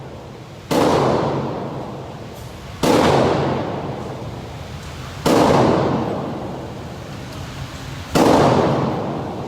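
Four gunshots from a gun at a shooting range, fired a couple of seconds apart. Each crack rings out in a long echo that fades over about two seconds.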